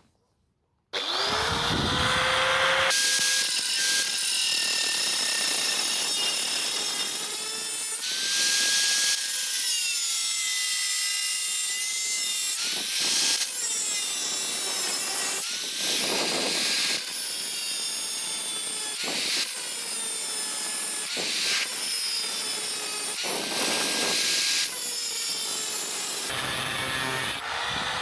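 Angle grinder switched on about a second in, its whine rising as it spins up, then grinding into a rusty steel saw blade, the pitch dropping under load and recovering several times as the disc bites and eases off.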